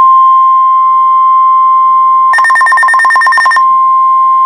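Weather radio speaker sounding the NOAA Weather Radio 1050 Hz warning alarm tone, a loud steady tone announcing a flood warning. A little over two seconds in, rapid higher beeping of about nine beeps a second sounds over it for just over a second.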